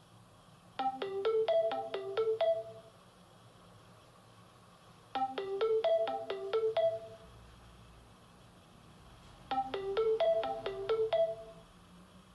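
Nokia E50 mobile phone ringtone playing from the phone's loudspeaker: a short melody of quick struck notes, about two seconds long, heard three times roughly four seconds apart.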